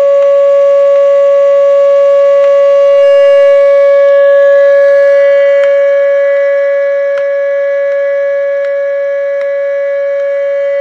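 Steady test tone from a signal generator, received and played through the loudspeaker of a Zenith G725 tube radio: one unbroken mid-pitched hum-like note with overtones, loud and steady, with faint hiss and a few soft clicks of AM-band interference.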